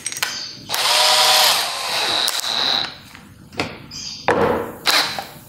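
Stanley brushless 18 V cordless hammer drill run for about two seconds from about a second in, rising in pitch as it spins up, with a countersink bit in the chuck. A few sharp clicks follow near the end.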